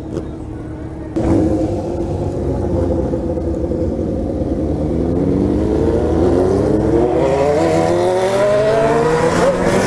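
Yamaha XJ6's inline-four motorcycle engine pulling away and accelerating. It gets suddenly louder about a second in, then its pitch climbs steadily, with a brief dip near the end.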